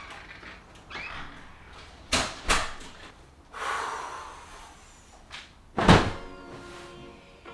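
Two sharp knocks about two seconds in, then a heavy thump near six seconds as a person flops face-down onto a bed.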